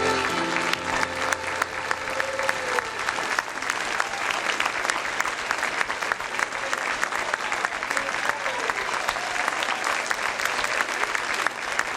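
Audience applause in an auditorium: many hands clapping steadily, with the last note of the children's song dying away just as it begins.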